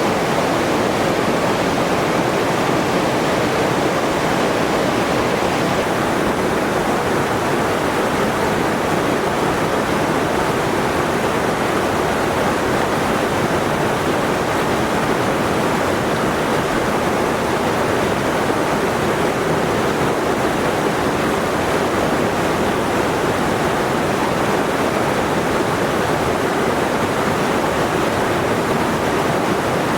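Steady rush of running water, even and unbroken, with no rise and fall of waves.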